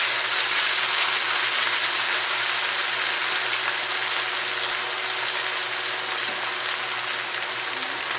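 Beef and broccoli stir-fry in sauce sizzling steadily in a nonstick wok as it nears done. It is stirred with a spatula at first, and the sizzle gradually gets a little quieter.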